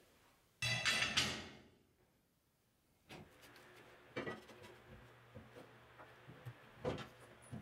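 Laser-cut steel plates being handled on a concrete floor: a loud clattering slide about a second in, then a few light knocks as plates are set down, over a faint low hum.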